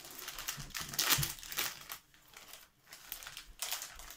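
Plastic packaging of a vacuum storage bag crinkling and rustling as it is handled and unwrapped, in irregular bursts, loudest about a second in, with a short lull past the middle.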